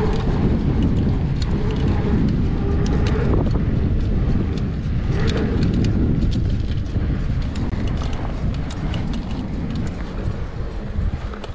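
Wind buffeting the microphone over the rumble of a mountain bike's tyres rolling on a dirt trail. Scattered clicks and rattles come from gravel and the bike itself.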